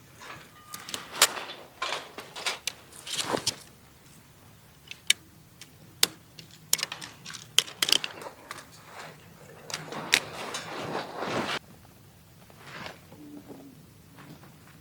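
Scattered sharp clicks, light knocks and rustling as objects are handled, with a longer rustle lasting a second or two about ten seconds in.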